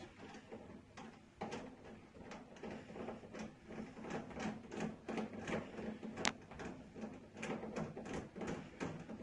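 Faint, irregular clicks and light scraping of a screwdriver unscrewing the retaining screw that holds a Euro cylinder lock in a uPVC door, with one sharper click about six seconds in.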